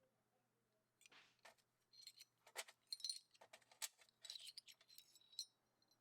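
Small metal pieces clinking and jingling against each other in quick, irregular light clicks with a bright ring, starting about a second in and stopping near the end.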